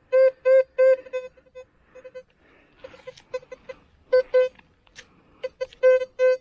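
Teknetics T2 metal detector giving many short, buzzy beeps all at the same low pitch, in irregular clusters as the coil is swept. This is the detector's low-tone response to iron targets in the ground.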